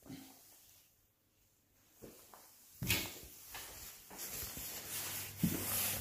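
Near silence, then a sudden knock about three seconds in, followed by footsteps and the rustle of a handheld phone being carried out of a small bathroom.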